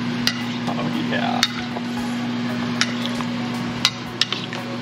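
A metal spoon stirring ceviche in a mixing bowl, knocking against the bowl in about five sharp, irregular clicks over a steady low hum.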